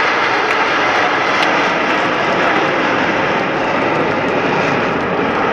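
Jet noise from a formation of Aermacchi MB-339 jet trainers passing overhead in close formation: a loud, steady rushing roar.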